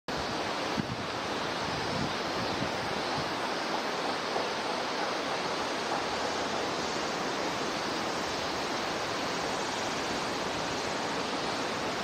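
Steady rushing of flowing water, unbroken throughout.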